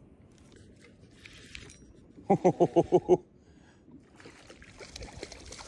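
Spinning reel being cranked to retrieve line, a quieter whirring with fine clicks over the last couple of seconds. Just over two seconds in comes a quick run of about seven loud, evenly spaced pitched pulses, the loudest thing heard.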